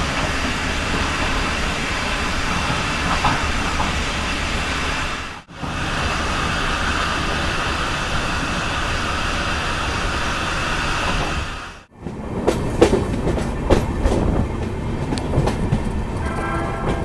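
Steady rumble and hiss of a moving LHB passenger train heard from inside the coach, in two clips joined by a sudden cut. After a second cut, about twelve seconds in, the wheels clack irregularly over rail joints as the train runs into a station.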